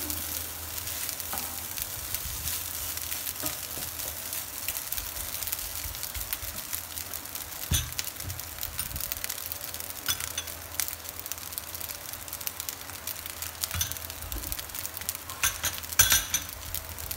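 Shrimp fried rice sizzling in a nonstick frying pan, stirred with a wooden spatula at first, then left to sizzle steadily with a few sharp crackles, the loudest near the end.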